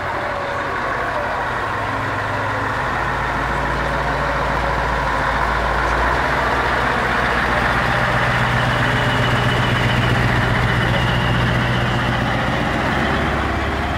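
Scania 143H 500's V8 diesel engine running at low revs as the truck rolls slowly past at close range, a deep steady drone that grows louder toward the middle and eases slightly near the end.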